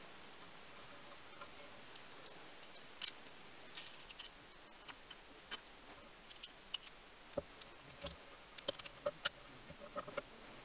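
Small metal parts of a mini lathe's compound slide (steel leadscrew, aluminium bearing block, thrust bearings, dial and handle) being handled and fitted together by hand: irregular light clicks and taps of metal on metal, growing busier about halfway through, over a faint steady hiss.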